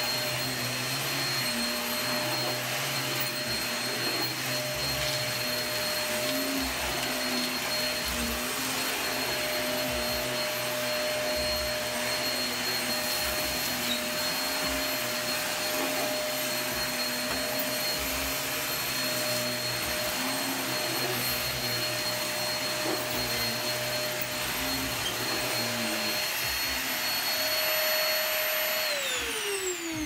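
Upright bagless vacuum cleaner running steadily on carpet with a constant motor whine. About a second before the end it is switched off and the whine falls in pitch as the motor spins down.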